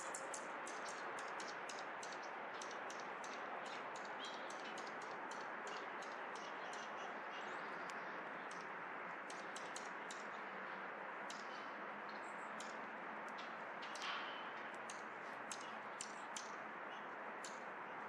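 Light, irregular tapping and clicking, several a second, from birds pecking at seed on a backyard feeder, over a steady background hiss; a short call about fourteen seconds in.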